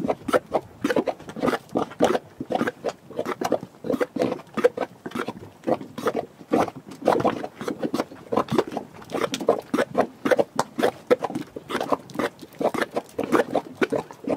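Mud pots bubbling: thick hot mud popping and plopping in a rapid, irregular stream of gloopy blurps, several a second, as gas and steam rise through it.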